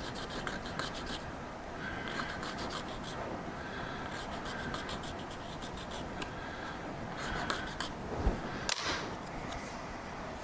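Small fine hand file rasping across the edge of a crystal-press die in short bursts of quick strokes, deburring the sharp edge so it grabs the crystal less. A single sharp click near the end.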